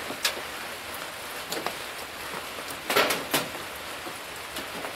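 Light rain falling, a steady hiss with a few sharp taps, two of them close together about three seconds in.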